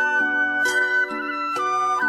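Background music: a melody of held notes stepping from one pitch to the next about every half second, over sustained lower chords.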